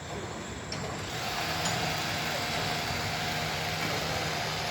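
A steady engine or motor running, growing louder about a second in, with a steady hum under a broad hiss.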